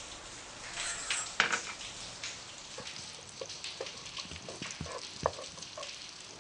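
Butter melting and sizzling in a hot stainless-steel pot while it is stirred with a wooden spoon, with scattered crackles and light ticks throughout.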